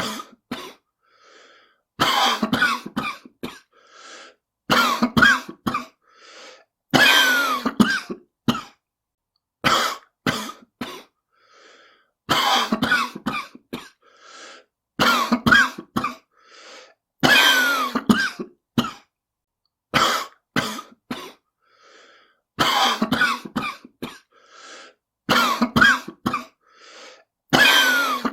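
A person coughing hard in repeated fits, a cluster of harsh coughs about every two and a half seconds with faint breaths between, presented as a smoker's cough.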